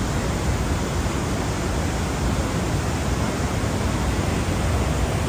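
A steady rushing noise, even at low and high pitches, with nothing standing out.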